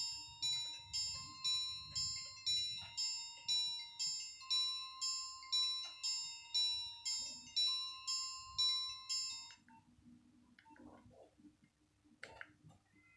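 Nokia 1202 mobile phone playing a ringtone through its small speaker: a repeating melody of bright electronic notes, about two a second, that cuts off about nine and a half seconds in. A few faint clicks follow.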